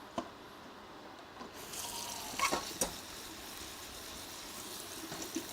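Kitchen tap running with a faint steady hiss that starts about a second and a half in, with a few sharp clinks of utensils or dishes.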